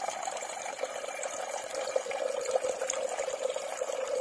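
Water running steadily from a tap into an aluminium cooking pot, filling it.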